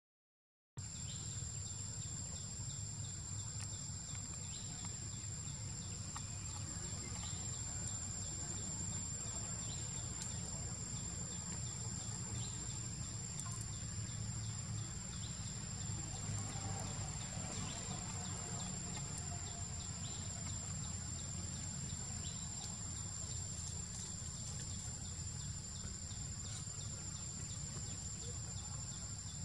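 Outdoor insect chorus starting about a second in: a steady high-pitched insect drone with a regularly repeated chirping beneath it, over a low rumble.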